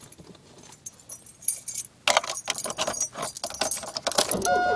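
Car keys jangling and clinking at the ignition as the car is being started, the clinking growing dense about halfway through. Near the end a steady electronic tone comes on.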